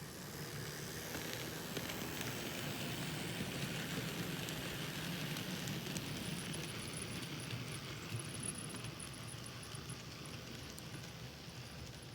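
N-scale model diesel locomotive pulling freight cars along the layout track: a steady low hum and rumble of motor and wheels that swells over the first few seconds and slowly fades as the train passes. A faint, rapid high chattering runs for a few seconds midway.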